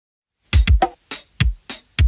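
Silence, then about half a second in a drum beat starts, with deep kick-drum hits and sharper snare-like hits in a syncopated pattern: the opening of a pop song.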